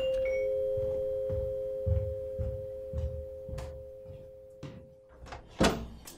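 Electric doorbell chime: two ringing tones, the second a little lower, struck at the press of the button and fading slowly over about five seconds. Soft footsteps approach underneath, and a few clicks end in a sharp clack near the end as the door is unlatched and opened.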